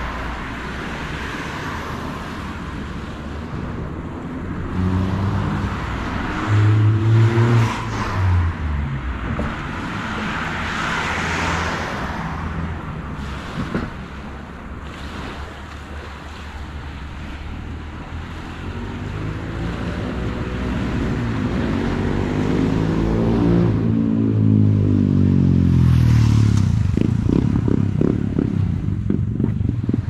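Motor vehicles passing close by on a road, one after another. A louder one approaches and goes by in the second half, its engine note swelling and then bending down as it passes. Near the end comes a low, rapid engine pulsing.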